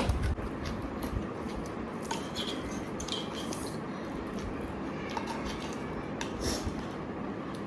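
Close-up mukbang eating sounds: biting and chewing crispy fried chicken wings eaten by hand, with scattered sharp clicks and crackles over a steady low background noise. A louder knock comes right at the start.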